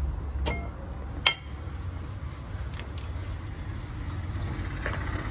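Metal brake parts clinking as a pad clip and pads are fitted into the caliper bracket. Two sharp metallic clinks with a short ring come within the first second and a half, then a few fainter ticks, over a low steady hum.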